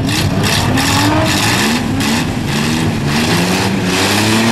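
Several demolition-derby vans' engines revving hard as they accelerate, their pitch climbing again and again, with more than one engine running at once over a steady roar.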